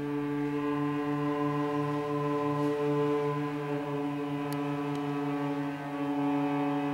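A cello bowed in one long, steady low note, held as a drone with many overtones.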